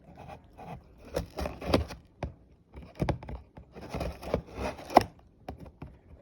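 Cardboard box and packaging being pulled and torn open by hand: irregular scraping, tearing and rustling in short clusters, with a sharp click about five seconds in.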